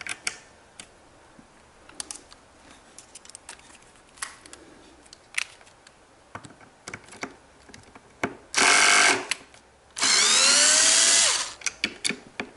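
Light clicks of parts being handled, then a Ryobi cordless drill running twice, driving a screw into a stand part: a short burst past the middle, then a longer run near the end whose motor whine rises in pitch.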